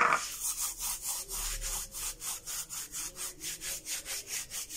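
Dried mint being crumbled by rubbing the palms together over a plastic tub: a rhythmic dry rasping, about five strokes a second.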